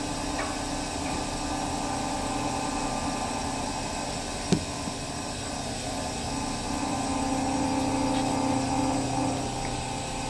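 Steady hum of running machinery with a few held tones, swelling a little in the later seconds. A single sharp knock about four and a half seconds in.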